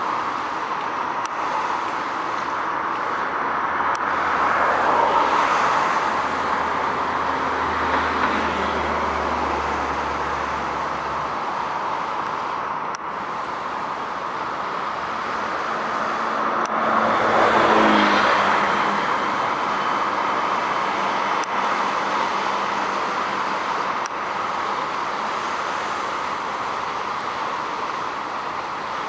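Steady road traffic noise with two vehicles passing, one about five seconds in and a louder one about seventeen seconds in, each falling in pitch as it goes by.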